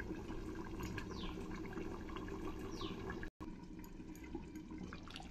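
Taro and snakehead fish curry simmering faintly in a covered pan, with a few small ticks, and a brief cut in the sound a little past three seconds in.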